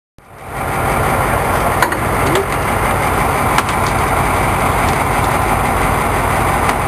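Boat engine idling, a steady rumble and hiss that cuts in suddenly just after the start, with a few sharp clicks over it.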